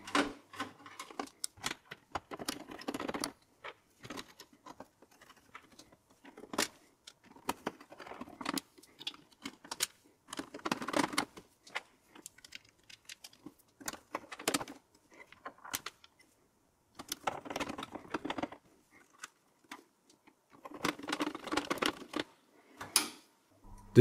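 Screwdriver driving the screws that fix a motherboard into a steel PC case: irregular clicks, scrapes and small metal rattles with short pauses between them.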